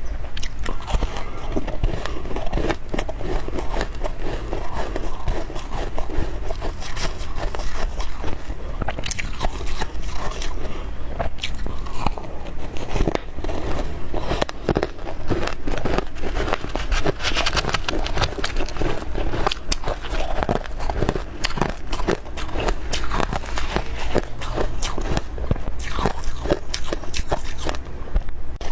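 Close-up biting and chewing of powdery freezer frost, a dense run of soft crunches and crackles.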